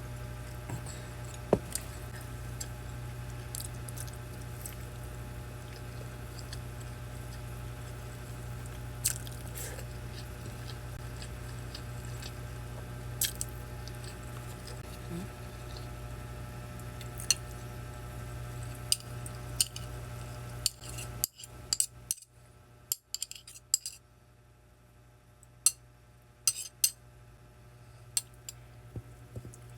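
Spoon and fork clinking now and then against a plate, with chewing, during a meal. Under it is a steady low hum that drops away about two-thirds of the way through.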